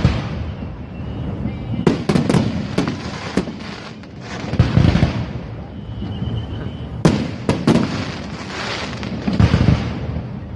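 Fireworks going off: several deep booms of shells bursting, with quick clusters of sharp cracks about two seconds in and again about seven seconds in.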